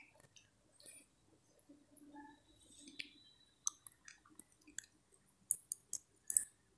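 Near silence broken by faint, scattered small clicks and ticks, a dozen or so, coming more often in the second half.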